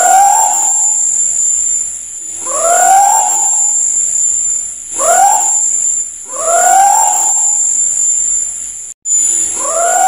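Scops owl (celepuk) calling: a single short hoot that rises and falls in pitch, given five times at intervals of about one and a half to three seconds. A steady high-pitched insect drone runs behind it.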